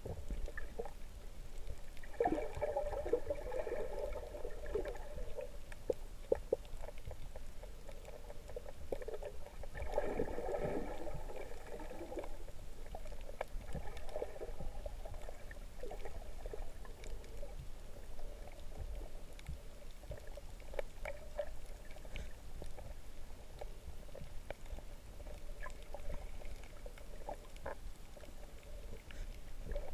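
Muffled underwater noise picked up by a submerged camera: water rushing and bubbling in surges, the two strongest a few seconds in and near the ten-second mark, with scattered faint clicks.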